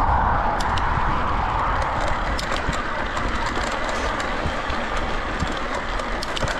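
Mountain bike tyres rolling over a gravel road: a steady rushing noise with many small ticks of gravel and bike rattle scattered through it.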